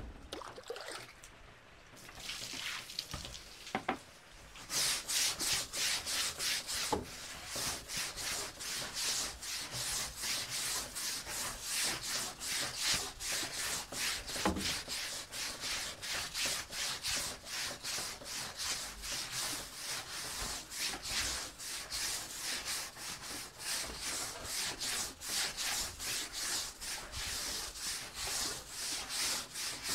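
Long-handled push scrub brush scrubbing a wet, soapy wooden plank floor in quick, even back-and-forth strokes, about two to three a second, starting about five seconds in.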